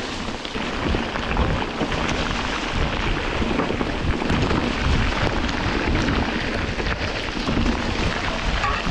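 Steady rushing noise of a mountain bike ride through a tropical rainstorm: rain, wind buffeting the microphone and tyres on a wet, muddy trail all blended together.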